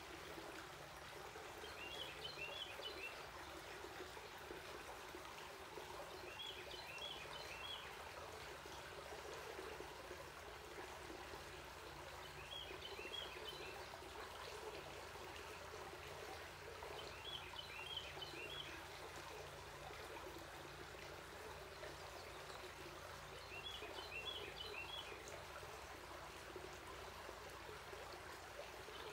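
Shallow stream running over rocks, a steady rush of water. A bird sings a short phrase of quick high notes over it, repeated about every five seconds.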